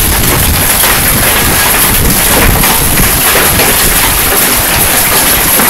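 Heavy hail pelting down: a loud, steady, dense clatter of countless hailstones striking the ground, patio and foliage.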